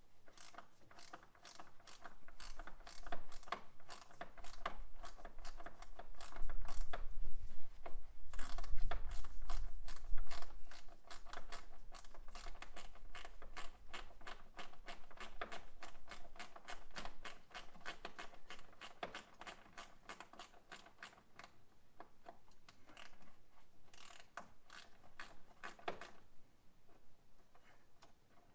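Hand ratchet wrench clicking rapidly in long runs while loosening a bolt, with some low knocking about a third of the way through.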